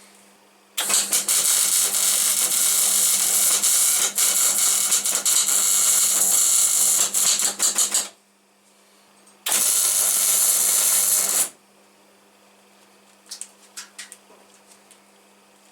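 Electric arc welder crackling and hissing while laying welds on steel: a long bead of about seven seconds, then a shorter one of about two seconds, with the welder set for 2 mm steel. A steady low hum runs underneath, and a few light metallic clicks follow near the end.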